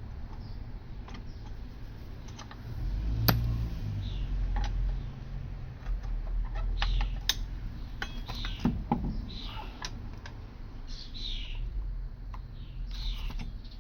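Scattered metallic clicks and knocks of a wrench and socket working a car wheel's lug nuts loose, with one sharper knock about three seconds in.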